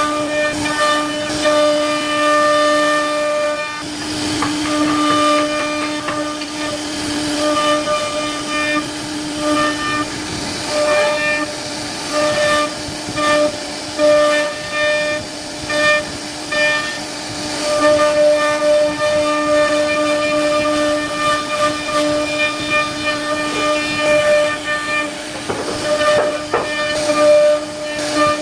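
CNC router spindle carving wood: a steady high whine with cutting noise underneath, breaking into short pulses in places as the bit works through the wood.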